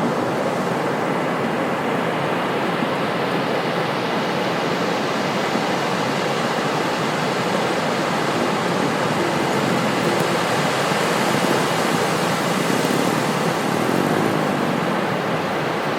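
Ocean surf breaking on a beach: a continuous wash of waves that swells a little just past the middle.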